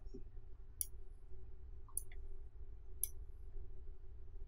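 Three light computer-mouse clicks about a second apart, over a faint steady hum.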